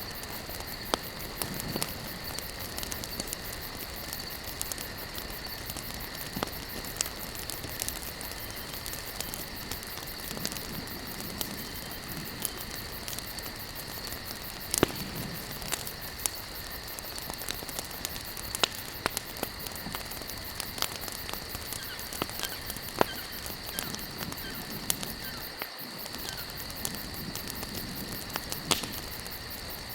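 Wood campfire burning with irregular crackling and occasional sharper pops, over a steady high-pitched drone in the background.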